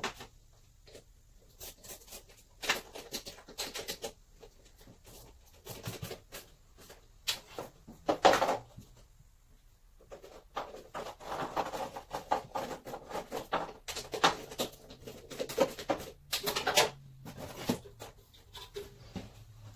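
Scattered small clicks, knocks and scraping of hand work on a car's rear light fitting, denser in the second half.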